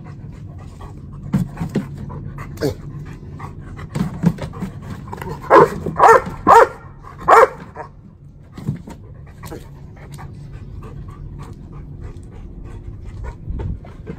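A yellow Labrador retriever panting quickly, with four loud, short barks in quick succession near the middle.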